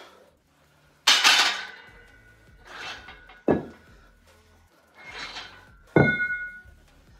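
Barbell and iron weight plates clanking: three sharp metallic knocks about two and a half seconds apart, the last two leaving a brief ringing tone.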